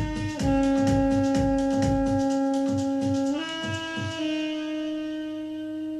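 Closing bars of a song: a sustained melodic lead holds long notes over a steady drum beat. The drums stop about two seconds in, and the lead moves up to a final long note that begins to fade near the end.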